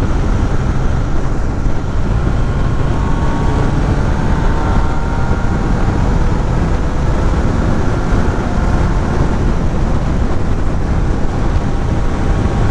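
Motorcycle cruising at a steady speed: a constant rush of wind and road noise with the engine's faint steady hum underneath.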